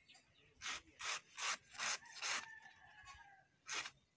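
A long bolo knife shaving thin round slices off a banana trunk, each cut a short rasping stroke. There are five quick strokes about two and a half a second, a pause, then one more near the end.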